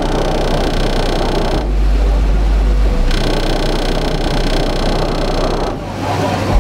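Truck's car-audio subwoofers playing a dubstep track at very high volume, heard close to the truck's front end: deep bass under a dense, rough buzz. A very deep bass note swells in about a second and a half in and drops out about a second later.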